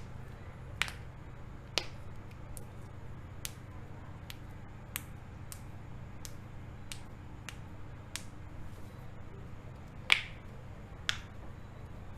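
Joints being cracked: a run of sharp, short pops at uneven spacing, roughly one or two a second. The loudest come about a second and two seconds in and twice near the end, over a faint steady low hum.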